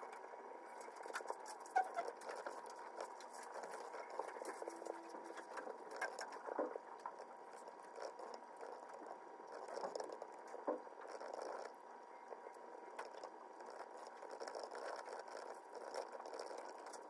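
Faint, irregular soft taps of typing on a laptop keyboard over quiet room tone with a thin steady tone.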